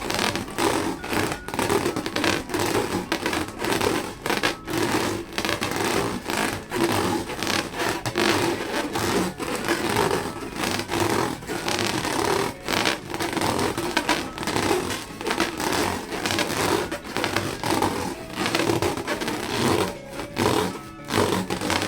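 Rubber balloons being squeezed and rubbed by hand: a dense, continuous rubbing texture broken by many short gaps.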